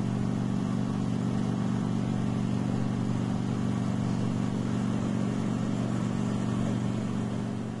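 Helicopter engine and rotor noise heard inside the cockpit: a steady low drone, fading out near the end.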